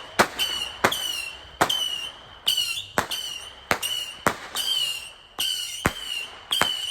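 Fireworks going off in quick succession: about ten high whistles, each dipping briefly in pitch and then holding steady, with a sharp crack between each one.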